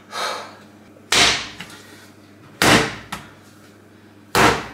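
Wet, sticky pizza dough lifted and slammed down onto a kitchen countertop three times, about every second and a half, each landing a sharp slap. The dough is still too wet and clings to the hands.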